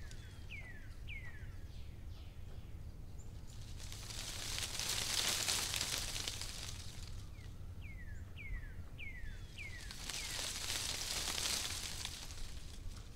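A bird calls two runs of four or five quick down-slurred whistles, one near the start and one about eight seconds in. Under them a high hiss swells up and fades twice, over a steady low rumble.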